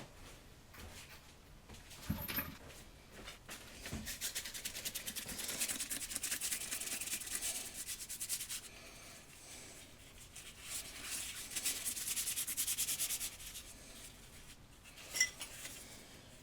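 Fast back-and-forth hand scrubbing in two spells of several seconds each, with a knock about two seconds in and a sharp metallic clink near the end.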